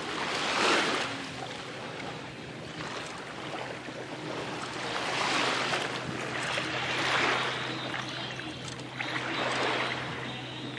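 Small waves washing in and out over shallow water at the shoreline, the wash swelling and fading several times, over a steady low hum.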